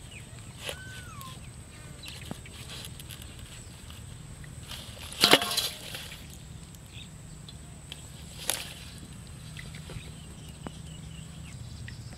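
Live fish thrashing and splashing in a steel bowl of water: one loud splash about five seconds in and a smaller one about three seconds later.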